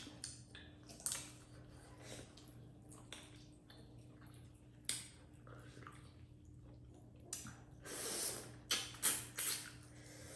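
Close-up eating sounds of dhido and chicken: scattered wet chewing and smacking noises with small clicks, growing busier about eight seconds in.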